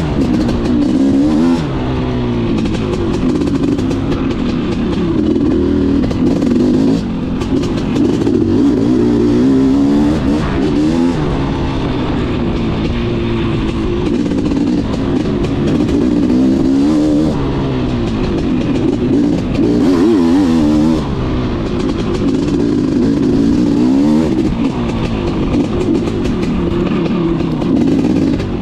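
BRC 500 dirt bike engine revving up and down while riding a trail, its pitch rising and falling every second or two, over steady wind and riding noise.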